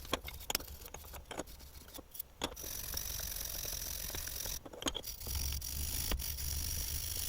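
Frost-cracked brass ball valve body being cleaned with a wire brush: a few sharp clicks of handling, then a steady high hissing scrub in two stretches of about two seconds each, with a short break between.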